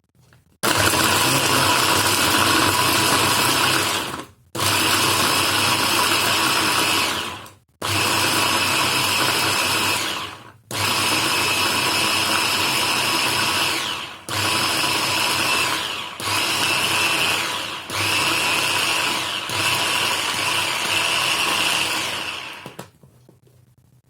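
Electric blender-type chopper motor running in seven pulses of about two to four seconds each with brief stops between, finely chopping onions.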